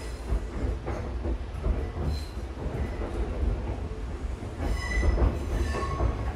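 Train running on the rails, heard from inside the passenger car: a steady low rumble with scattered wheel knocks. About five seconds in, a short high-pitched wheel squeal comes and goes.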